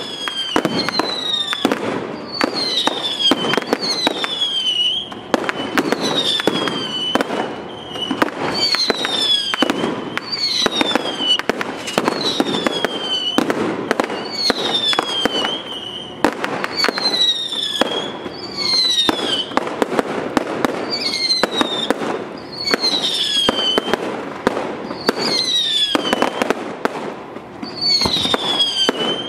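Fireworks display: a dense, unbroken string of bangs and crackling, with a high whistle falling in pitch about every second.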